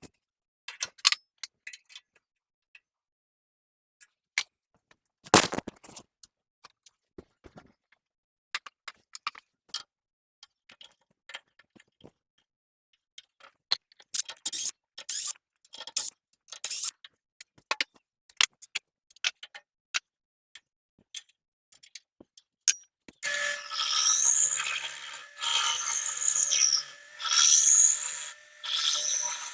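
Scattered light clicks and knocks of wood and tools being handled, with one sharp knock about five seconds in. Near the end, rough abrasive rubbing on wood starts, in repeated strokes about a second long.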